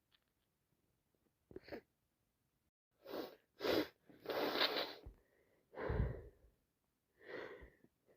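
A woman with a heavy head cold building up to a sneeze: two short sharp gasps about three seconds in, then sneezing, with more breathy bursts after.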